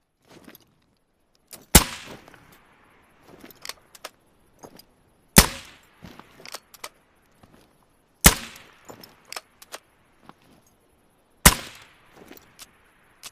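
Vasquez Cyclone 45 air rifle firing four shots, about three seconds apart, each with a short fading tail. Quieter clicks and rattles come between the shots.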